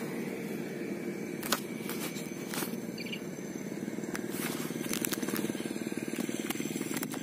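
A small engine running steadily with a fast, even pulse, with a few sharp clicks and taps over it.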